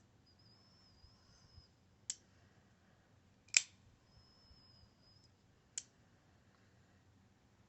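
Smith & Wesson Extreme Ops folding knife clicking as its blade is worked open and shut: three sharp clicks a second or two apart, the middle one loudest.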